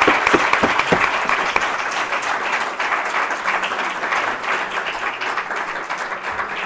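Audience applauding, the clapping slowly thinning out and getting quieter toward the end.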